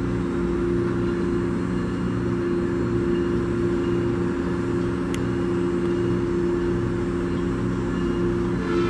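Stationary Metrolink passenger train idling: a steady mechanical hum with several constant low droning tones over a rumble, and a single sharp click about five seconds in.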